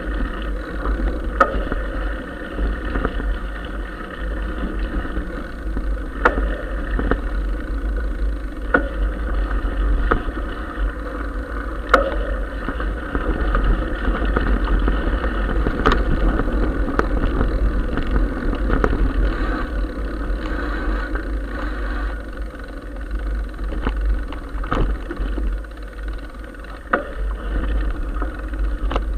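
Mountain bike rolling over a gravel track: steady tyre noise with wind buffeting the camera microphone, and scattered sharp clicks and knocks from the bike over bumps and stones.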